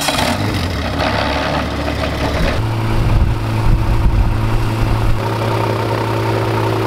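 Aventura amphibious seaplane's pusher engine and propeller running on the ground: a steady engine hum whose tone changes abruptly about two and a half seconds in and again about five seconds in.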